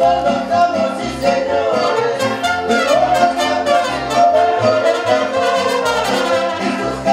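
Music with brass instruments over a steady, repeating bass line.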